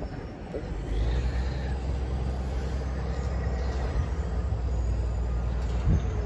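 Low, steady rumble of a heavy diesel engine, setting in about a second in, with a single thump near the end.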